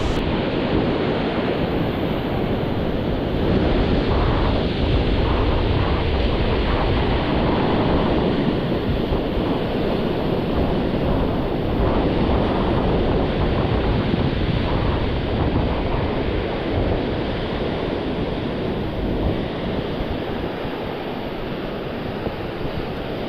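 Ocean surf washing onto the beach, a steady rushing wash with rumbling wind buffeting the microphone.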